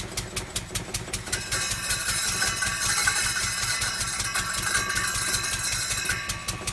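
Lister D single-cylinder stationary engine running with a regular beat while it drives a circular saw. From about a second in until shortly before the end, the blade cuts through a piece of wood with a high, steady whine.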